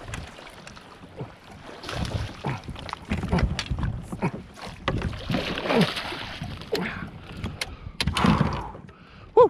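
Irregular knocks, clicks and rustling of gear being handled aboard a fishing kayak, with a few short muttered voice sounds and a sharp loud knock near the end.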